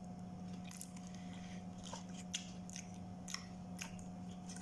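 Mouth chewing with scattered short crunches and crackles of crispy fried chicken breading.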